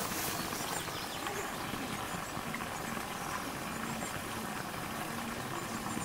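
Steady outdoor background noise with faint, scattered bird chirps.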